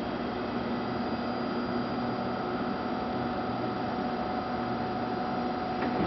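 Steady electrical hum with several thin whining tones from a stationary ex-Tokyu 5000 series electric railcar, its onboard auxiliary equipment running while it stands at the platform.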